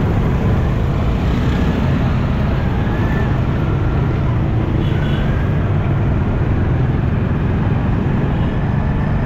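Steady low rumble of a motorcycle riding in slow, dense city traffic, heard from an action camera mounted on the bike, with the noise of the surrounding cars and rickshaws.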